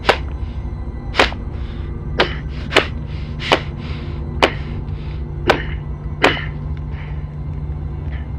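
Repeated heavy blows of a metal pipe striking a body: about eight hits, roughly one a second and slightly uneven, each with a short wet smear after it, over a steady low drone. A last, fainter hit comes near the end.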